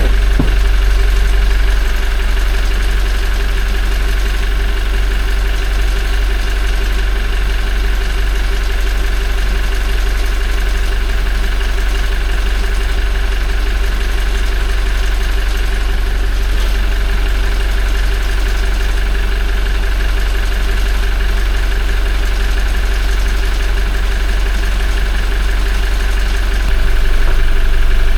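Toyota 1GD-FTV 2.8-litre four-cylinder turbodiesel idling steadily while it warms up, with a fairly quiet timing-chain rattle that the owner hears on the old Lukoil oil. It gets a little louder near the end.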